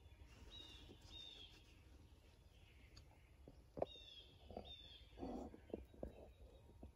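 Faint songbird calls over near silence: two pairs of short falling chirps, about three seconds apart. Around the middle a sharp click and then a brief rustle and a few knocks as the phone is handled.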